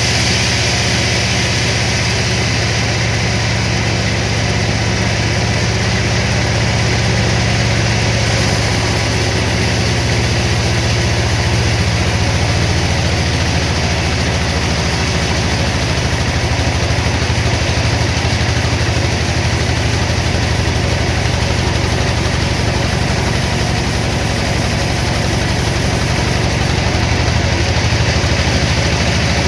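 Sawmill machinery running steadily, with a constant low engine-like drone that holds the same pitch throughout.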